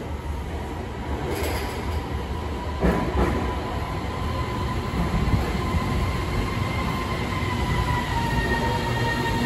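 Beijing Subway Line 7 train pulling into an underground station behind platform screen doors: a steady low rumble with a whine that dips in pitch about seven seconds in as the train slows. A sharp knock sounds about three seconds in.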